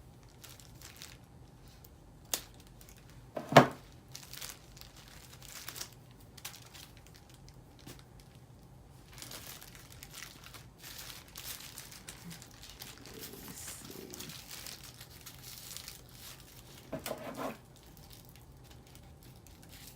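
Crinkling and tearing as tape and small packaging pieces are cut and peeled off a new handbag, with a few sharp clicks, the loudest about three and a half seconds in.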